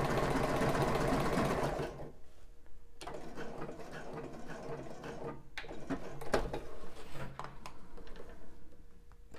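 Juki computerized sewing machine stitching along elastic on a bra band. It runs steadily for about two seconds, then drops sharply to a much quieter stretch with scattered clicks.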